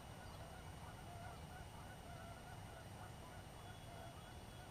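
Faint calls of distant birds, repeated many times, over a low steady rumble.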